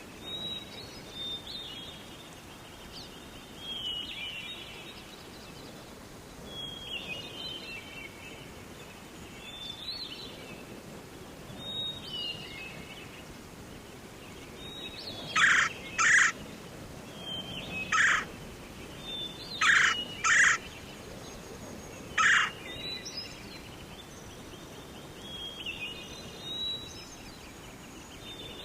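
Forest birds singing short falling phrases every two or three seconds. About halfway through, a series of six loud, short, harsh calls from a bird cuts in, partly in pairs.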